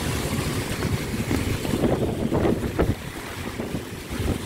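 Strong typhoon wind buffeting the microphone as a low, uneven rumble, with a few harder gusts about two to three seconds in, over heavy rain.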